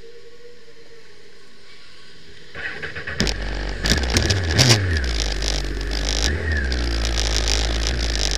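A superbike's engine cranks and fires about three seconds in. It is blipped so the revs rise and fall a couple of times, then keeps running.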